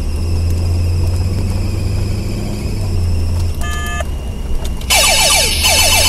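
Inside a Pontiac Trans Am KITT replica on the move: the engine runs with a steady low drone, with a faint high whine from the fan belt, which is making an abnormal noise. A short electronic beep sounds a little past halfway, and about five seconds in a loud electronic effect with rapidly repeating falling sweeps sets in.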